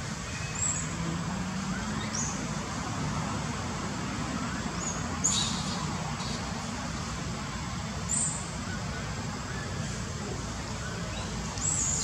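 Steady hum of distant road traffic, with short, high, falling chirps every few seconds.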